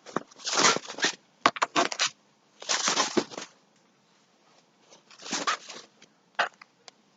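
Packaging being handled: several short bouts of rustling and crinkling, with pauses between them.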